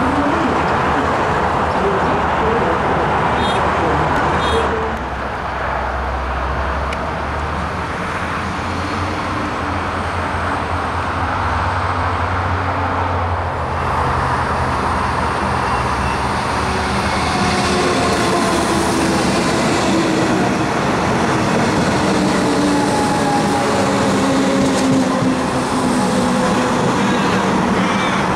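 Melbourne electric suburban trains running along the line, over a steady rushing noise. In the second half a passing set adds thin tones that glide in pitch.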